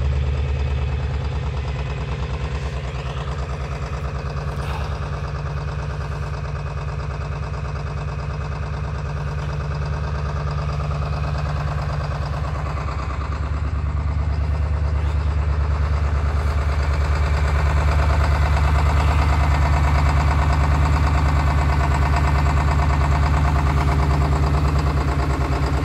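Ford 7.3 Power Stroke V8 turbo-diesel, fitted with 205/80 hybrid injectors, idling steadily right after a −13 °C cold start. It grows louder about halfway through and stays louder.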